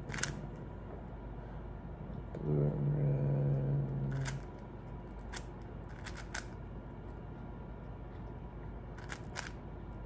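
Plastic 4x4 speed cube being turned, its layers clicking and clacking now and then, with a quick run of clicks about six seconds in and two more near the end. About two and a half seconds in, a low, steady hummed note lasts nearly two seconds.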